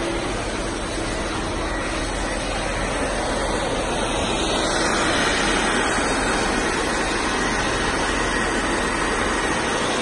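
Industrial wet vacuum running steadily, its floor nozzle sucking up muddy water with an even rushing noise. From about halfway it gets a little louder and brighter.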